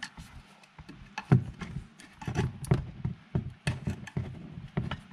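Irregular clicks and knocks of a long flat screwdriver prying at a latched plastic wiring holder on a BMW's rear suspension, metal tapping against plastic and metal as the latch is worked loose.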